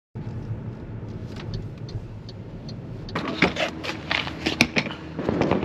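A hiker's footsteps crunching on the trail, starting about three seconds in as a run of uneven, sharp crunches, over a steady low rumble.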